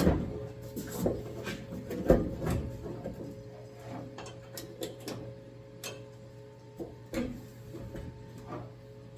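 Irregular knocks and clicks of metal hood hardware being handled and fitted, loudest near the start, about a second in and about two seconds in, over a steady hum.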